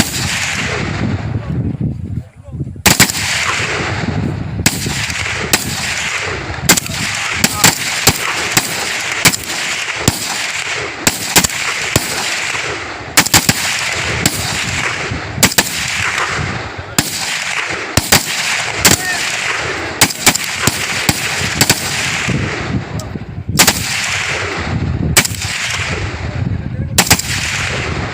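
Ghatak 7.62×39 mm rifles firing single shots, more than twenty at irregular intervals of about a second apart, each followed by a long rolling echo, with a short pause about two seconds in.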